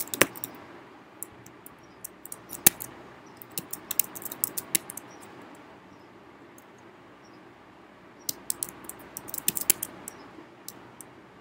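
Computer keyboard typing: keys clicking in short bursts with pauses of a few seconds between, and a couple of sharper single clicks.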